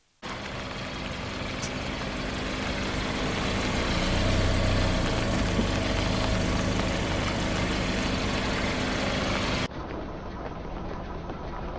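Car engine running steadily, growing a little louder over the first few seconds. Near the end an abrupt cut switches to a duller recording of an engine running.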